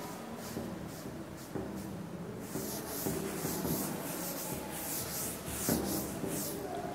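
A cloth wiping chalk off a blackboard in quick back-and-forth strokes, about two to three swishes a second, growing louder from about halfway through.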